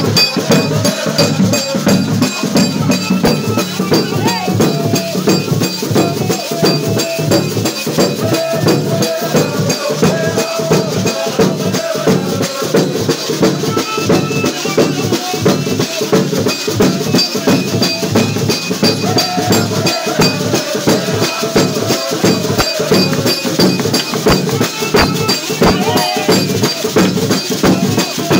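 A group of church members singing a hymn together with steady rhythmic hand-clapping.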